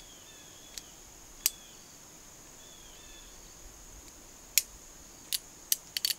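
Sharp metallic clicks of a Heritage Rough Rider single-action revolver being handled and loaded: two single clicks early on, then a quick run of about five clicks near the end. Under them runs a steady high chirring of insects.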